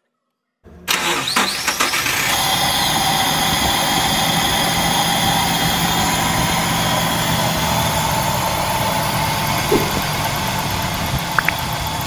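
Nissan 2.4-litre twin-cam 16-valve four-cylinder engine cranking and catching about a second in, then settling into a steady idle.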